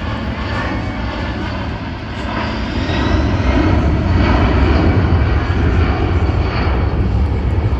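Loud engine noise of an aircraft flying past, a steady rumble that grows louder about two and a half seconds in.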